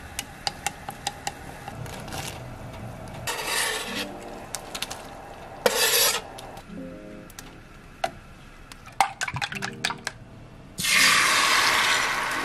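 Cooking sounds: a metal ladle and chopsticks clink against a pot of miso soup, then kitchen scissors click as wakame is snipped in. Near the end beaten egg is poured into a hot tamagoyaki pan and sizzles loudly, the sizzle slowly fading.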